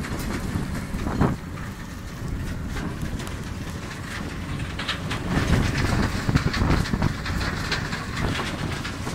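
WBS500 stabilized soil mixing plant running: a steady low mechanical rumble with irregular rattling and clatter.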